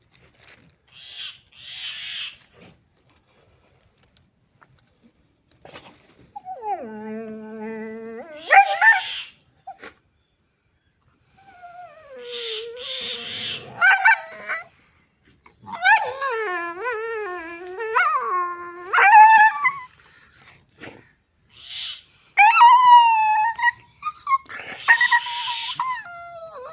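A dog howling and whining in a series of drawn-out, wavering calls that slide up and down in pitch, with short breathy huffs between them.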